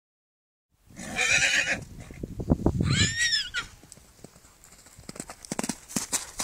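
Yearling gypsy cob whinnying twice, a rough call and then a high call that rises and falls, with hoofbeats thudding on turf as it gallops. It is the calling of a young horse just separated from its companion.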